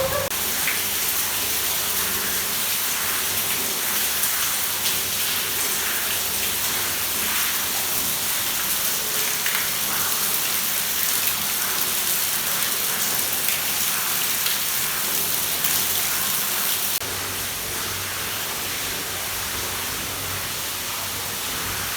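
Water pouring and splashing down steadily inside an apartment building, a dense rain-like rush. The level drops a little about seventeen seconds in.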